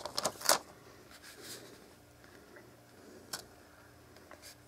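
Handling noise from a small plastic tablet and its USB cable in the hands: a quick cluster of light clicks and taps about half a second in, then a single sharp tick a little past three seconds and a couple of fainter ones near the end.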